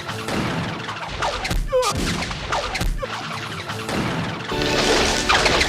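Cartoon soundtrack of music and sound effects: a series of swishing whooshes from the Sound Ideas spinning-rope effect with crash-like hits, louder and denser near the end.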